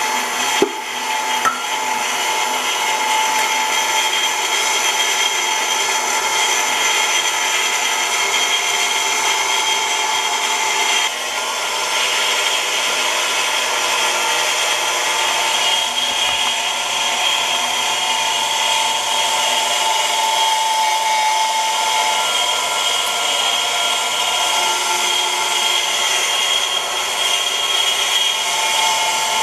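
KitchenAid stand mixer motor running steadily, driving a Chef's Choice Model 796 metal food grinder attachment as it grinds beef: a steady motor whine over grinding noise. A sharp click sounds about half a second in.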